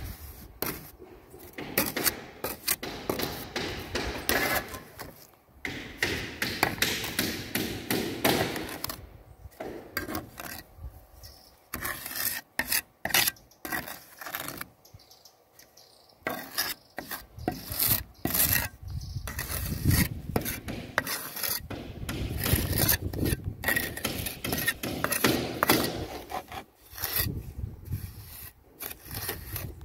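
Mason's trowel scraping and pressing cement mortar into the joint along roof ridge tiles, in many short, irregular scraping strokes, with a quieter, sparser stretch midway.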